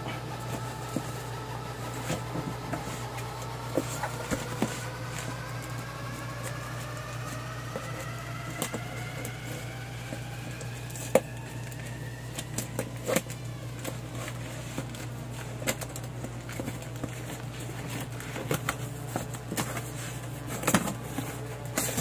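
Scissors cutting the packing tape on a small cardboard box and the box being opened, heard as scattered clicks, snips, taps and cardboard rustles, the sharpest about 11, 13 and 21 seconds in. A steady low hum runs underneath, and a faint tone slowly rises in pitch through the first half.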